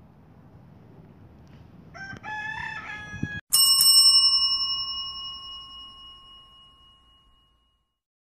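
A rooster crows about two seconds in, then a single bright bell-like chime strikes and rings out, fading away over about four seconds.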